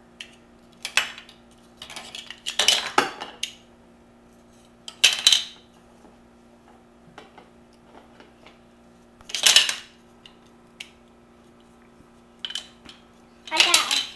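Large plastic toy building blocks clacking and clattering as a toddler handles them, presses them together and sets them down on a table. The clatters come in short clusters: about a second in, around three and five seconds, near ten seconds, and several near the end.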